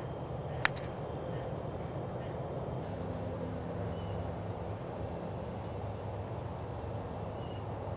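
A golf club striking a teed-up golf ball on a tee shot: one sharp, loud crack about half a second in. A steady low outdoor rumble runs underneath.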